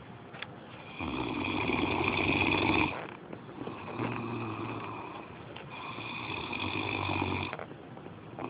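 Snoring in slow, long breaths: three snores of about two seconds each, the middle one softer.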